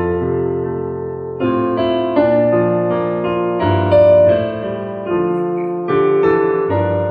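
Roland digital piano playing slow chords, each struck and left to fade before the next.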